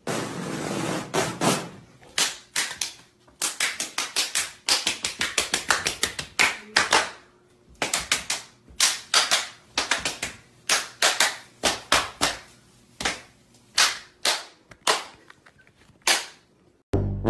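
A long run of sharp knocks and taps, a hand striking a hard textured panel, coming in quick irregular bursts of several strokes each.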